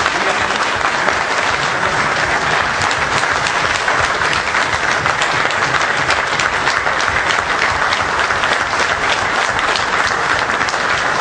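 A room full of people applauding: dense, steady clapping.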